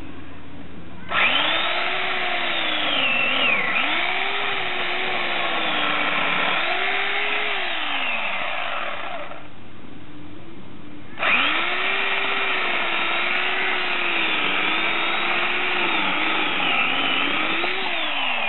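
Electric chainsaw running off a solar generator and cutting wood in two runs with a short pause between. Its motor pitch sags and recovers as the chain bites into the log.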